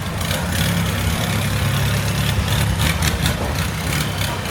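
Longtail boat engine running steadily, a low drone, with scattered crackling noise on top.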